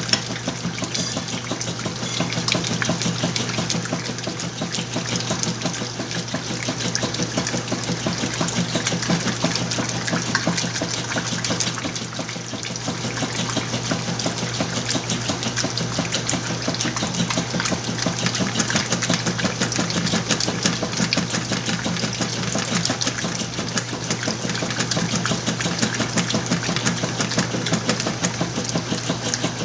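Whirlpool washing machine running a wash cycle with a full load: a steady low motor hum under continuous churning and sloshing of water and clothes.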